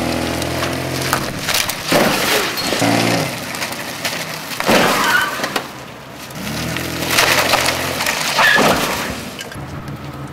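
A car engine revving hard between several crashes as one sedan rams into another, each impact a loud crunch of sheet metal with breaking glass and plastic.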